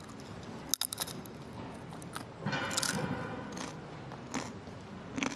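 A potato chip bitten and chewed right at the ear of a binaural dummy-head microphone: a sharp crisp snap about a second in, then several crunches as it is chewed.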